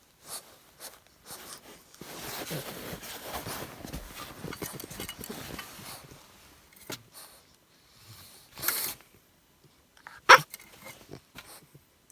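Thirteen-week-old English bulldog puppy making noises: a rough, noisy stretch of about four seconds starting about two seconds in, then scattered short sounds and one sharp, loud one about ten seconds in.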